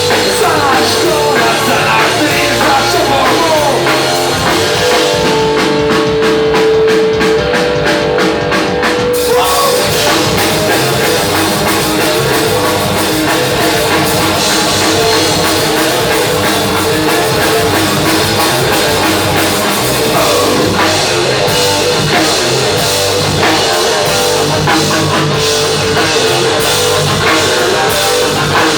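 A rock band playing an instrumental passage on drum kit and electric guitar, with no vocals. Sliding guitar notes come in the first few seconds, and a long held note follows from about a fifth to a third of the way through.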